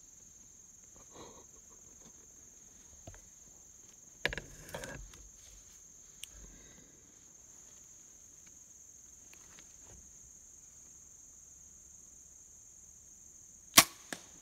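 High, steady drone of insects, with a brief rustle and knock about four seconds in. A single sharp crack comes near the end and is the loudest sound.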